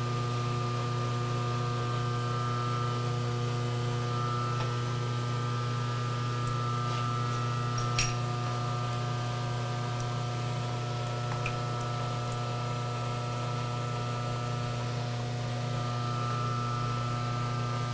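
Electric motor of a machine tool running steadily with a low, even hum, with a single light click about eight seconds in.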